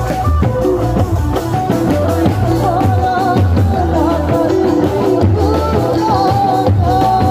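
Loud procession music from a sound system: a singing voice carries a wavering melody over drums and a heavy, steady bass.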